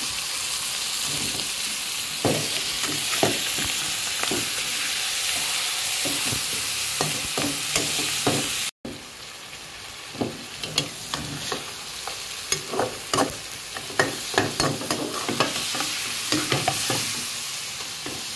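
Pad thai noodles and sauce sizzling in a hot wok while a spatula stirs and scrapes against the pan. The sound drops out for a moment about halfway through; afterwards the sizzle is softer and the spatula's scrapes and knocks come several times a second.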